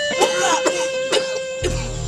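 Dramatic background film score holding a long sustained note, with a few faint voice sounds and clicks over it; a low steady hum comes in near the end.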